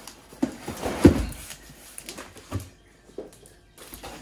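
Cardboard shipping box being handled: flaps rustling and scraping, with a few dull thumps, the loudest about a second in, as a heavy boxed brake disc is worked out of it.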